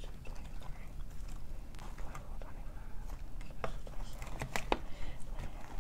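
Chicken nuggets being picked through and shifted by hand in a glass bowl: scattered soft taps and clicks.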